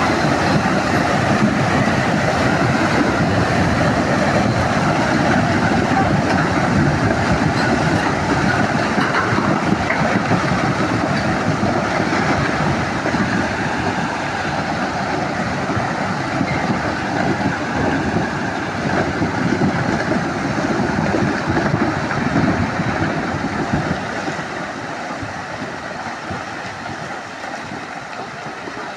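Steady rushing of water, fading over the last few seconds.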